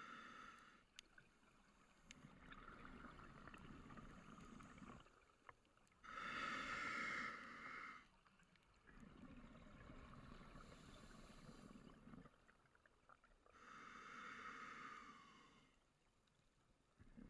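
Scuba diver breathing through a regulator, heard underwater: exhaled air bubbling out, alternating with the hiss of each inhalation, about two full breaths with a gap of a few seconds between them.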